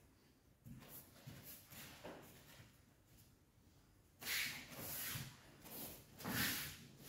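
Soft swishing of bare feet sliding on judo tatami and rustling judogi cloth as two judoka grip and step. It is very faint at first, and a few louder swishes come in the second half.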